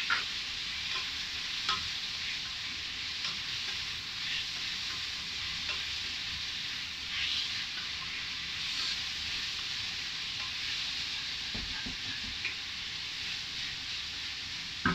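Chicken and sausage sizzling steadily as they stir-fry over high heat in a stainless steel frying pan, turned by a wooden spatula that scrapes and taps against the pan now and then.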